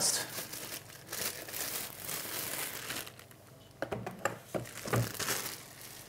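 Thin clear plastic wrapping bag crinkling and rustling as a keyboard is slid out of it, dying down after about three seconds, followed by a few light knocks.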